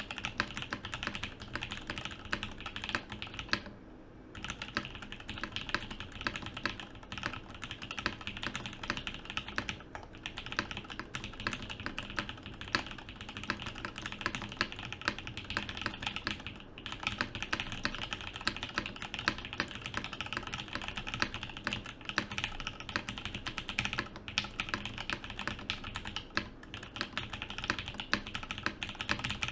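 Fast, continuous typing on a Mode65 mechanical keyboard with Durock V2 switches and SP Star keycaps, on an FR4 plate in an isolated top mount with no foam. The keystrokes come as a steady stream of clacks, broken by brief pauses about four seconds in, around ten seconds, near seventeen seconds and around twenty-four seconds.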